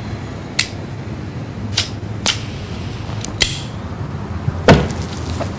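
A few sharp, isolated clicks about a second apart over a low steady hum, then a heavier thump about three-quarters of the way through, followed by a couple of lighter clicks.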